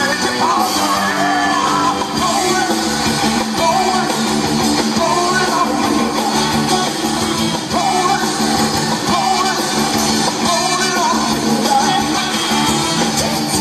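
A live soul band playing a song, with a lead singer's voice over guitar and the band.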